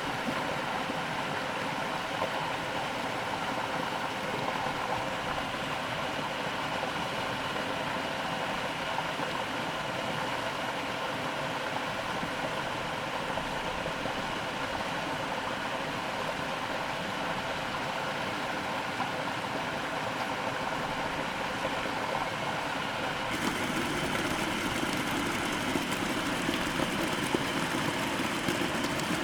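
A steady motor hum, several unchanging tones over a rushing, water-like noise. The sound shifts abruptly about 23 seconds in, then runs on as steadily.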